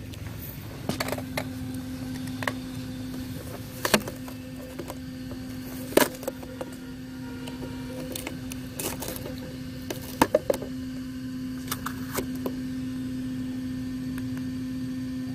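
Adhesive tape being peeled off an RC truck's plastic body and the unit beneath it being handled: a few sharp rips and clicks over a steady low hum.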